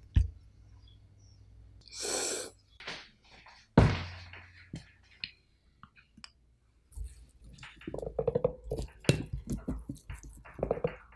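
Hands prising apart a cracked mature coconut: a rapid run of short crackles and creaks from the dry husk and shell through the last four seconds. Earlier come two sharp thumps about three and a half seconds apart.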